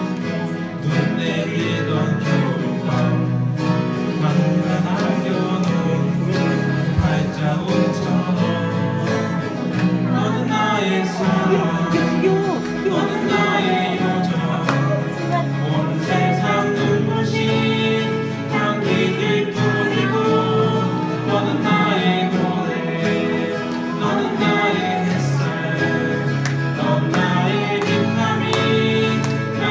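A song performed by singing voices over guitar accompaniment, running steadily without pause.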